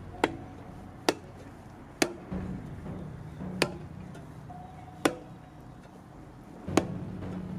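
Six sharp, unevenly spaced strikes of a hand tool on the bat, each a short crack with a brief ring, over steady background music.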